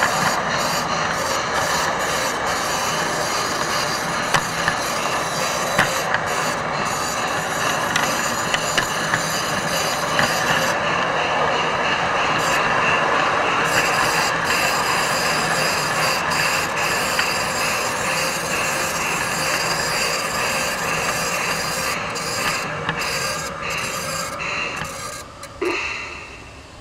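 Garden-scale model train running along its track: a steady rolling, rubbing noise with occasional sharp clicks, fading away over the last few seconds.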